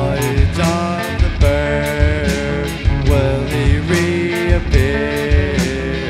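Live rock band playing amplified: drum kit with regular cymbal and drum hits, electric guitars and bass guitar, under a melody line of held notes that slide from one to the next.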